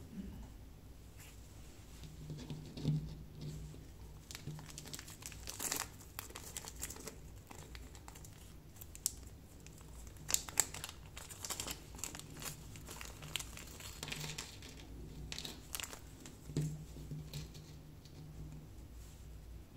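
Small clear plastic bag crinkling in irregular bursts as fingers open and handle it, dying away near the end.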